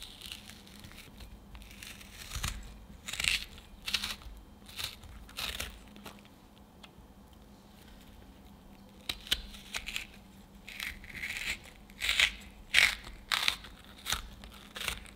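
Stainless steel melon baller cutting balls out of a firm peeled peach: short, crisp scraping strokes of the scoop through the flesh, in two runs with a pause of a few seconds in the middle.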